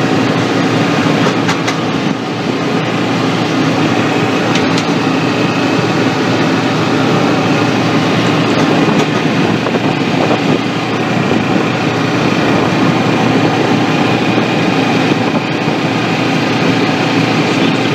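A John Deere Gator 2x4 utility vehicle running steadily as it drives along pavement, heard from the driver's seat on a test drive after its steering rack was replaced.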